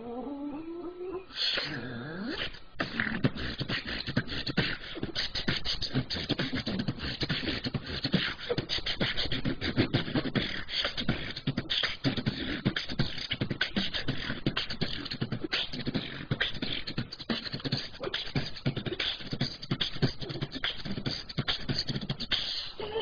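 A woman beatboxing: a fast, dense run of percussive mouth sounds, mixing drum-like hits, clicks and hiss. It comes in about a second and a half in, after a gliding sung note, and runs almost to the end.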